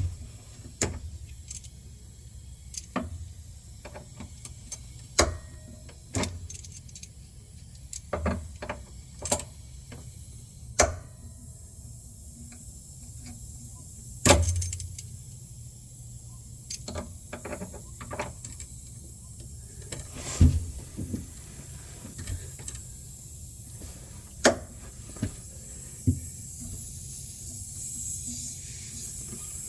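Metal hand tools and refrigeration tubing being handled: scattered irregular clicks, clinks and knocks, over a low steady hum. A faint hiss builds near the end.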